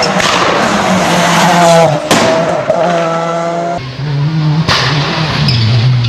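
Skoda WRC rally car's turbocharged four-cylinder engine at hard throttle as the car passes close by, its pitch holding and then dropping with the gear changes, over loud tyre and exhaust noise. The sound changes abruptly a couple of times where one pass is cut to the next.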